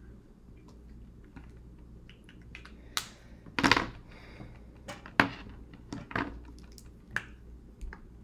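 Irregular light clicks and taps of felt-tip markers and hands being handled on a tabletop, with one longer scraping rustle about three and a half seconds in.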